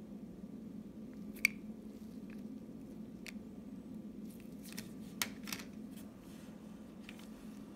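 Clear plastic coin capsules with 1 oz silver coins clicking and tapping as gloved hands turn them and set them down. A handful of sharp separate clicks, the loudest about a second and a half in and a few more around five seconds in, over a steady low hum.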